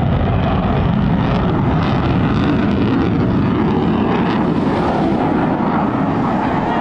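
F-35C Lightning II jet's single Pratt & Whitney F135 afterburning turbofan running loud and steady as the jet banks through a hard turn.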